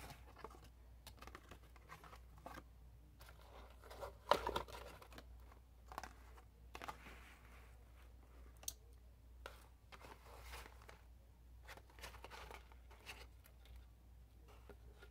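Faint rustling and light clicking of cardboard takeout boxes and paper being handled, with long acrylic nails tapping on the cardboard; the loudest clatter comes about four seconds in.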